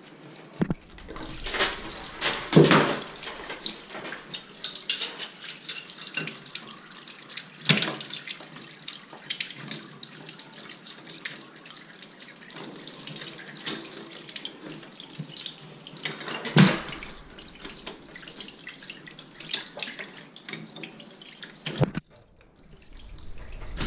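Water running and splashing from a plumbing line being drained out of a lower fixture, with a few sharp knocks over it. The running stops suddenly near the end.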